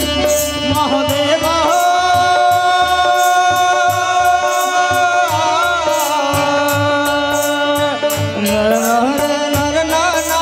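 Live Hindu devotional bhajan: a male singer holds long drawn-out notes over harmonium, with tabla strokes and a steady ticking high percussion beat.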